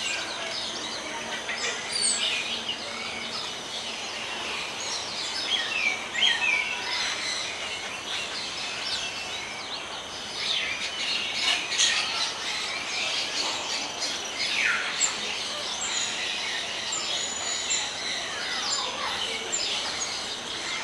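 Small songbirds chirping: scattered thin high chirps and quick down-slurred calls, some close together, over a steady background hiss.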